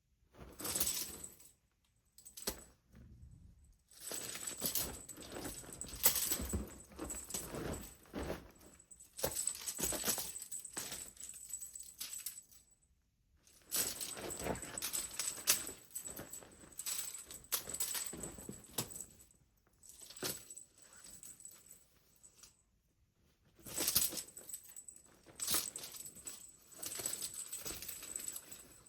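Cat teaser wand toy jingling and rattling in irregular stretches of a few seconds, with short quiet gaps between them, as it is swung and batted during play.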